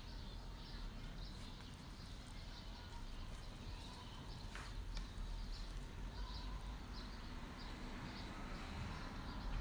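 Quiet background with a steady low hum and faint, irregular small bird chirps, plus one soft click about four and a half seconds in.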